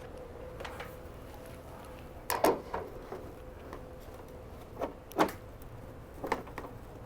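Motorized screen housing cover being fitted back onto the housing: a few sharp clicks and knocks, the loudest about two and a half and five seconds in, as the cover is set in place.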